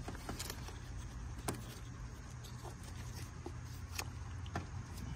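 A few faint, scattered clicks and light knocks as a plastic ignition coil pack is slid down by hand into its spark-plug well, over a steady low hum.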